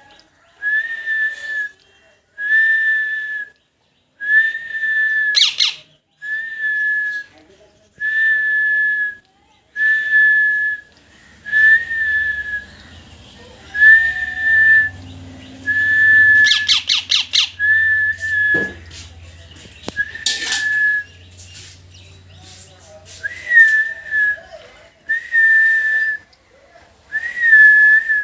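A parrot whistling one short, level note over and over, about once every second and a half, with a few sharp squawks mixed in.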